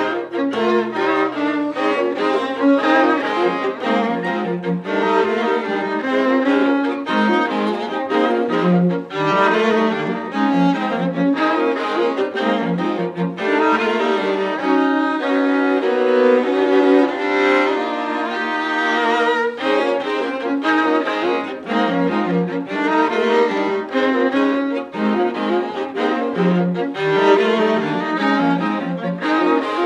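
A string quartet of violins and cello playing a busy, rhythmic piece, with a stretch of longer held notes about midway through.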